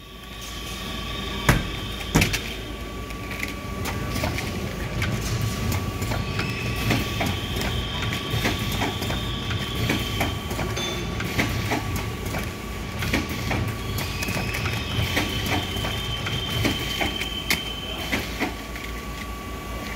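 Wet-wipe lid-applicator machine running at about 80 lids a minute, its two-suction-cup robot arm and conveyor making rapid, uneven mechanical clicking and clatter over a steady whine. Two louder knocks come early on, and a hiss comes and goes.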